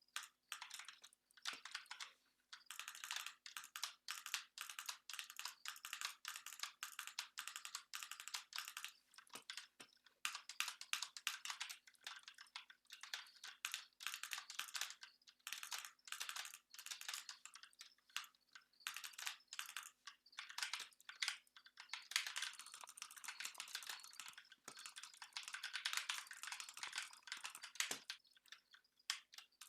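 Computer keyboard being typed on: a rapid, dense run of key clicks with a few short lulls, sparser in the first couple of seconds. A faint steady hum lies underneath.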